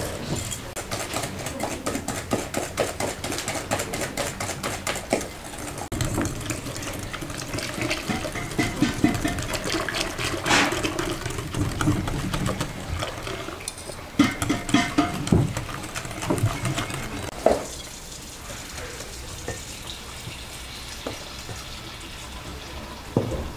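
Wire whisk beating in a glass mixing bowl, with rapid clicking strokes against the glass. Partway through, liquid is poured in from a metal bowl and whisked into the batter with wet stirring sounds.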